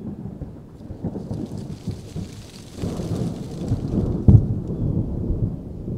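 Flat paintbrush dabbing and scrubbing acrylic paint onto a stretched canvas close to the microphone: uneven low thumps and rustling, with a brief brushing hiss in the middle and one sharper knock a little past four seconds in.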